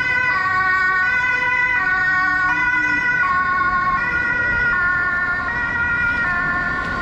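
German two-tone emergency siren (Martinshorn) on a fire engine, alternating between two pitches about every three-quarters of a second.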